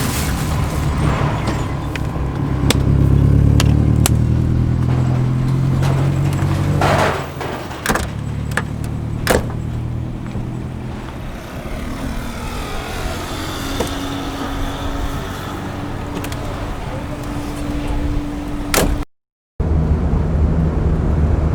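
A motor vehicle's engine running with a steady low rumble, with a few sharp clicks and knocks. The sound cuts out for a moment near the end.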